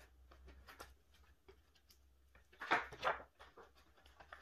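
Clear plastic photocard sleeves rustling and clicking as they are handled, with a louder clatter about three seconds in as the three-ring binder's metal rings are opened.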